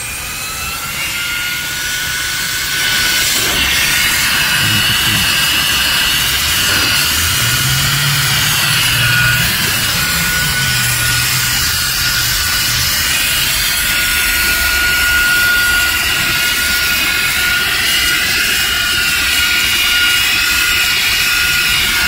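VSGO cordless handheld vacuum's high-speed motor running at full power: a high whine over rushing air, its pitch still climbing for the first second or so after switch-on and then holding steady, as the narrow nozzle sucks dirt off a rubber car floor mat.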